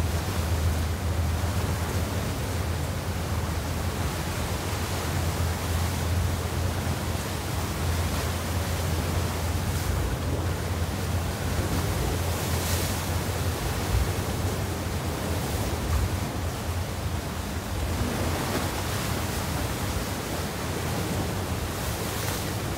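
Steady wash of wind and choppy waves, with a constant low rumble underneath and no distinct events.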